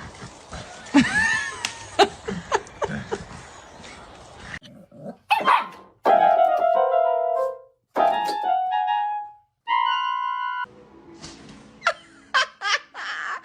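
Dog yelping and barking in short, sharp calls, broken in the middle by a few seconds of music with held notes.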